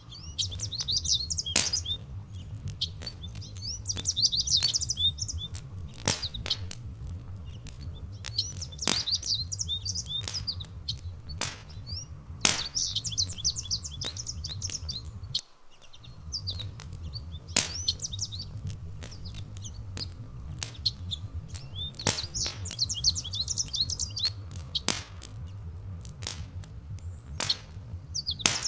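A small songbird singing short, high twittering phrases every few seconds over a crackling wood fire that gives frequent sharp pops, with a steady low rumble beneath; the rumble cuts out briefly about halfway through.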